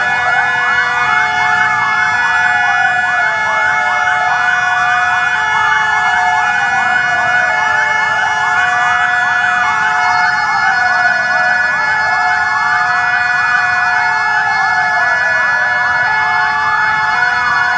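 Many fire engine sirens sounding together: overlapping wails falling in pitch again and again, under a steady two-note tone that alternates about once a second, alongside several held steady tones.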